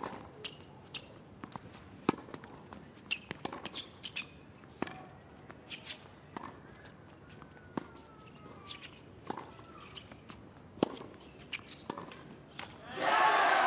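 Tennis ball bouncing on a hard court and being struck by rackets: sharp, separate knocks every second or so over a faint crowd murmur. Applause breaks out near the end.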